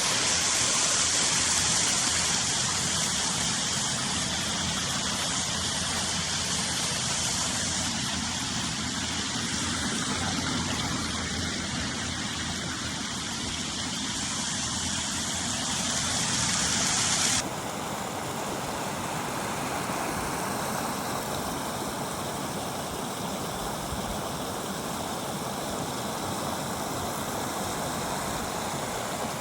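Waterfall and stream water rushing steadily. About two-thirds of the way through, the sound changes abruptly to a duller, less hissy rush.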